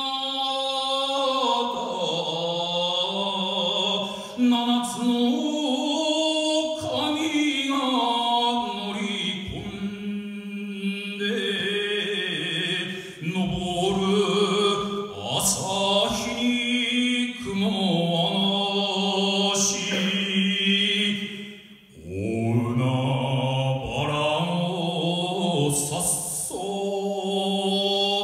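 A man singing sumo jinku solo into a microphone, in long, drawn-out phrases whose pitch bends and wavers on each held note, with short breaths between phrases.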